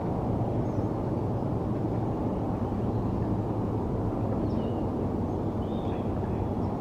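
Steady low rumble of distant city traffic or aircraft, with a few faint, short bird chirps over it.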